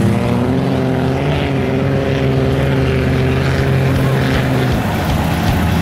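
Small pickup truck's engine revving high and held at a steady pitch as the truck churns through deep mud, until the pitch breaks off into a rougher, uneven running about four and a half seconds in.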